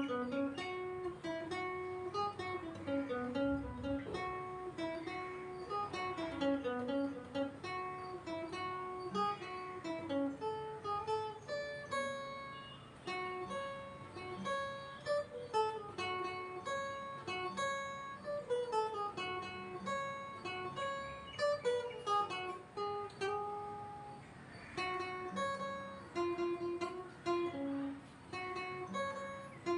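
Cutaway acoustic guitar fingerpicked solo, playing a single-note film-song melody with plucked notes stepping up and down.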